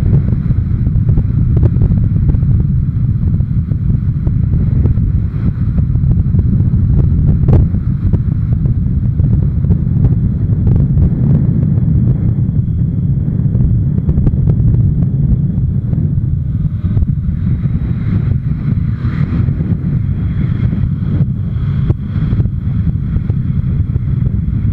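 Wind buffeting the microphone of a camera on a moving motorcycle, over the motorcycle's engine and tyre noise at road speed: a loud, steady low rumble.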